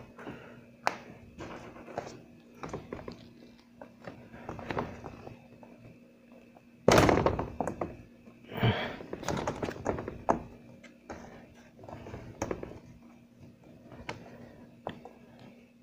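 Thin plastic panels of a snap-together cube storage cabinet knocking and clicking as they are handled and pressed into plastic corner connectors, in scattered irregular knocks with the loudest about seven seconds in.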